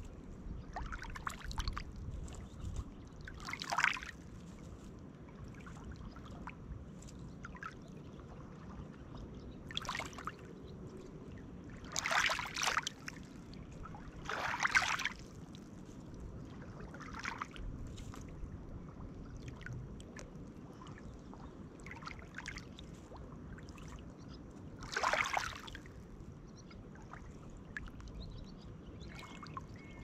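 Small lake waves lapping onto a pebble shore, splashing and trickling among the stones in irregular washes every few seconds over a steady low wash of water.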